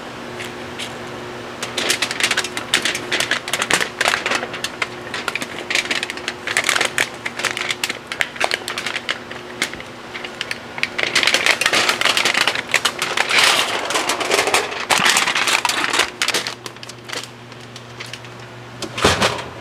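Thin stainless steel heat-treat foil crinkling and crackling in irregular bursts as it is folded and handled, loudest toward the middle, with a steady fan hum underneath.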